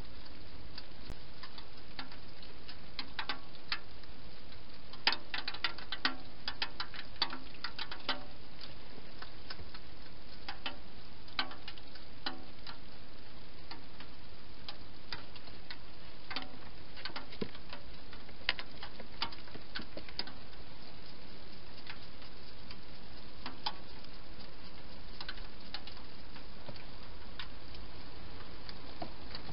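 Wild hedgehog feeding at a bowl inside a plastic feeding box: irregular sharp clicks and crunches, in clusters then scattered, over a steady hiss.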